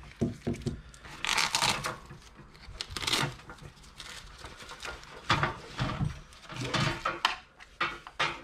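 Handling noise: LiPo battery packs and their fabric safety bags being lifted and moved about over a metal tray, with rustling and light clunks and clatters in several short bursts.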